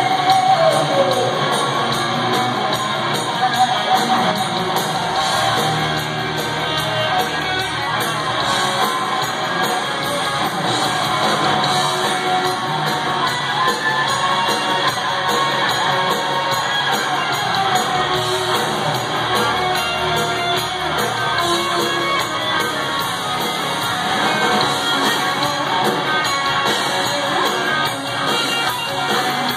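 Live rock band playing through a concert sound system, heard from among the audience in a large hall: electric guitar and drums with a woman singing and shouts from the crowd. A held note slides down right at the start.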